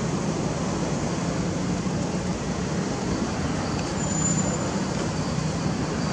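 Steady outdoor background noise, an even low rumble with hiss, and a brief thin high whistle about four seconds in.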